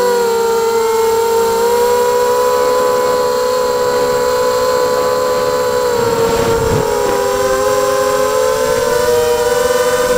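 Brushless motors and three-blade 5x3 propellers of a 250-class FPV racing quadcopter (Elite 2204-2300kV motors) whining steadily in flight, picked up by the camera on board. Several close pitches drift slightly up and down together.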